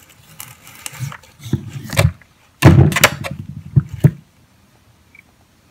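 Long kitchen knife cutting through a raw, sprouted seed potato and knocking against a plastic cutting board: a series of thuds and clicks, the loudest around the middle.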